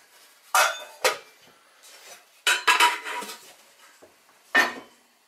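Metal pans and pan lids being handled and set down: a few sharp clanks, a quick run of clinks in the middle with a brief metallic ring, and a last clank near the end.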